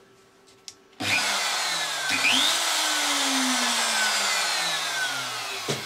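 RotoZip Rebel spiral saw motor, with no wheel fitted in its collet, switched on with a high whine about a second in; the pitch rises briefly, then falls steadily for a few seconds as the motor winds down, and the sound drops off near the end.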